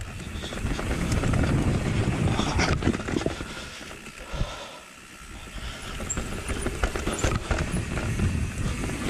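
Mountain bike tyres rolling fast over a dirt forest trail, a steady rumble with constant small rattles and clatters from the bike over roots and stones. It eases off briefly about halfway through.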